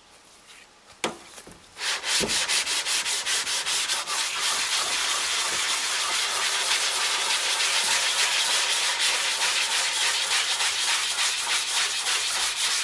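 Hand sanding with a long wooden sanding stick: sandpaper rubbed in quick back-and-forth strokes across the painted side panel of a GMC Safari van, starting about two seconds in after a light knock. The red paint serves as a guide coat, so the long stick scuffs the high spots of the old body filler and skips the low ones.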